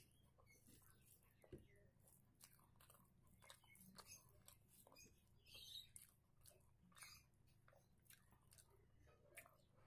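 Faint eating sounds: fingers mixing rice and curry on a plate and chewing, heard as many small irregular clicks and squishes over a faint low hum.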